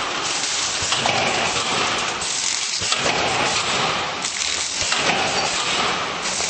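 Vertical form-fill-seal bag packaging machine running, a loud, steady, dense rushing noise without a clear rhythm.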